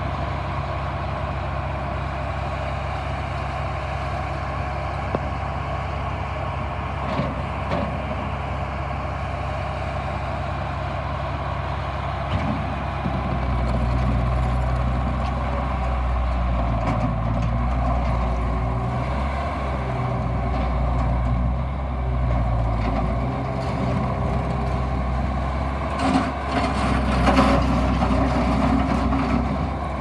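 Bobcat T200 compact track loader running with a steady low engine drone; the engine comes up in load and gets louder about a third of the way in as the machine drives on its rubber tracks. Near the end there is a short spell of clattering and rattling.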